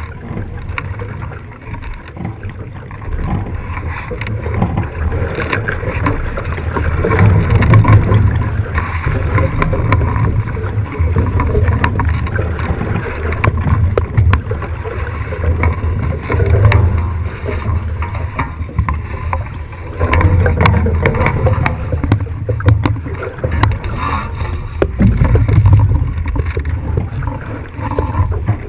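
Rushing water and wind aboard a sailing 18ft skiff, picked up by cameras mounted on the boat: a loud, uneven rushing with a deep rumble that swells and falls every few seconds.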